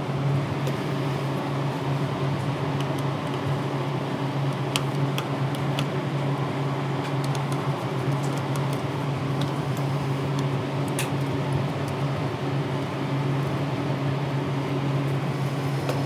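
Steady hum and rush of a clean bench's blower fan, with a few faint light clicks from the open hard drive being handled on the work surface.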